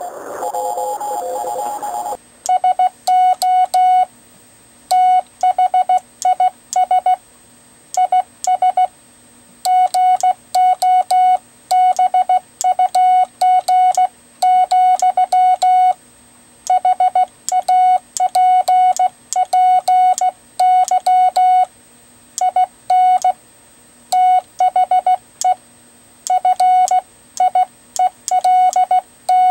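Morse code sent by hand on a GoBug semiautomatic key (bug): a single steady beep tone keyed on and off in fast dots and dashes, with a faint click at each element. Background music stops about two seconds in, just before the keying starts.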